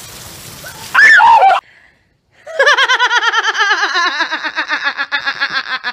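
A short, loud cry about a second in. After a brief gap, a woman laughs hard in rapid, evenly repeated high-pitched bursts for over three seconds, the pitch slowly sinking.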